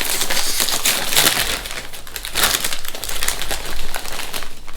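Crinkly foil chip bag rustling and crackling loudly as it is pulled open and handled.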